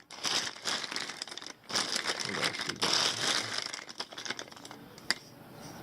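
Crinkling, rustling handling noise as hands rummage through a collection of plastic Bic lighters, with a couple of light clicks near the end.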